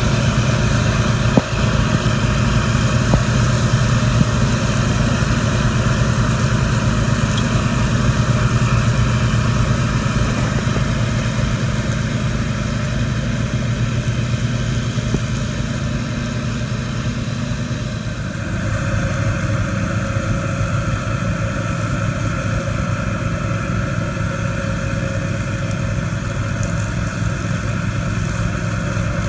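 Engines of a tow-behind brush mower rig running steadily while mowing: the mower's own engine together with the vehicle towing it. There is a single knock just after the start. The engine note changes abruptly about two-thirds of the way through.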